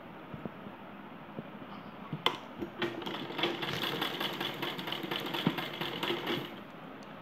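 Sewing machine stitching fabric onto a zip: a sharp click a little over two seconds in, then a fast, even run of stitches for about three and a half seconds that stops shortly before the end.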